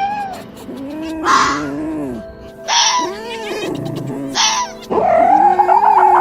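Foxes making whining, mewing calls that rise and fall, several in a row with the last one drawn out, broken by three short raspy screeches. Soft background music runs underneath.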